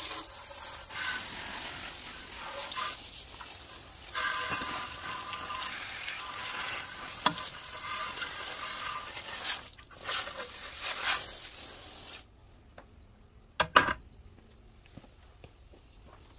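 Water spraying from a hose nozzle onto a brake caliper bracket, a steady hiss with one short break, which stops about three-quarters of the way through; a couple of light knocks follow.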